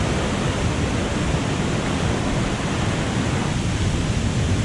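Steady rush of a waterfall's falling water, an even roar with no breaks.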